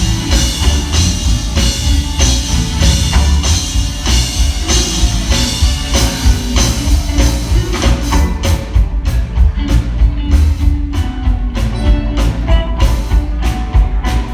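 Live gospel band playing loudly on drum kit, bass and guitar with a steady beat; no lead vocal is made out.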